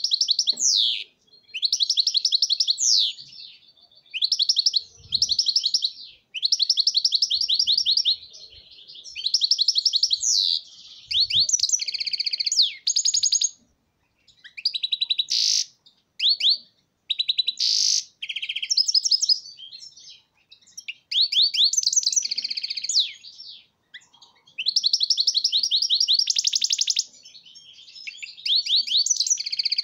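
European goldfinch singing: repeated phrases of fast, high trills and twitters, each a second or few long, separated by short pauses.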